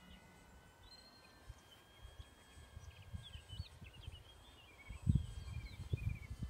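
Small birds chirping and warbling in short, varied phrases. Wind gusts rumble on the microphone over the last second and a half.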